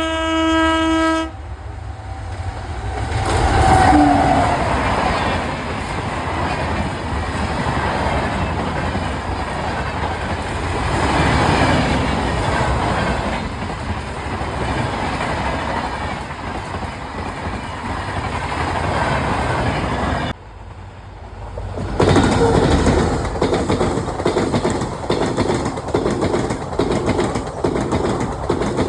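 Indian train: a short blast of the horn at the start, then a train going by fast with a heavy rumbling rush. After a cut about 20 seconds in, the wheels clatter over rail joints in a steady rhythm.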